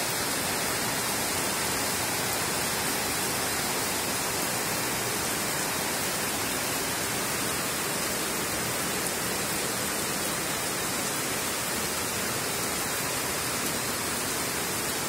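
Heavy downpour: rain pouring down in a dense, steady hiss that does not let up.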